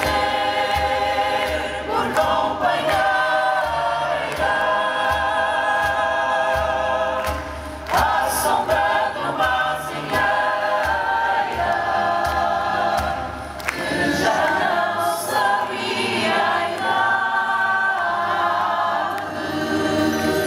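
Choir singing long, held chords in several phrases, with short breaks between them about eight and thirteen seconds in.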